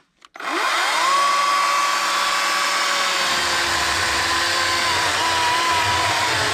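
Cordless electric saw cutting a log for firewood: the motor whines up to speed within the first second and runs steadily. A low rumble joins from about three seconds in, and the pitch sags slightly as the blade works under load.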